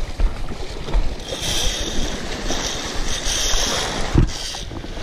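Wind buffeting the microphone over the wash of shallow surf, with a high whirring from a spinning reel that comes and goes in several spells from about a second in until near the end.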